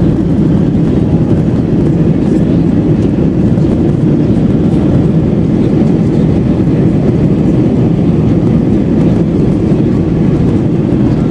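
Steady, loud rumble of an Airbus A320 heard from inside the passenger cabin during landing, made of engine and airflow noise.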